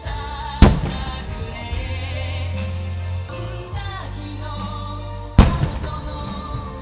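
Two aerial firework shells bursting with loud booms that echo away, one about half a second in and one near the end, over music with singing.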